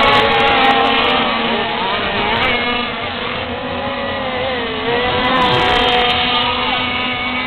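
Several radio-controlled racing powerboats running together at high revs, their engines' whines overlapping and rising and falling in pitch as the boats race and turn.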